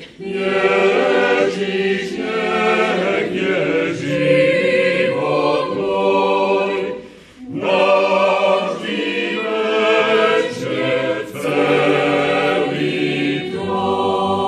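Mixed choir of men's and women's voices singing a hymn a cappella, in long phrases with a short break for breath about seven seconds in.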